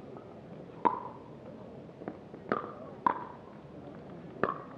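Pickleball paddles striking the plastic ball in a rally: four sharp pops, each with a brief ring, a second or so apart, with a few fainter taps between.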